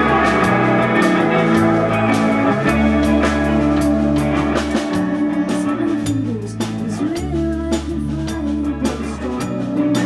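Live indie rock band playing with electric guitar, bass and drum kit. Held bass notes change every couple of seconds under steady drum and cymbal hits.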